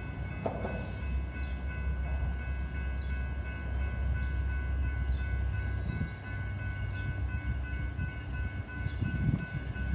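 A Union Pacific diesel locomotive approaching with its gravel train: a steady low engine rumble, with steady high tones held above it.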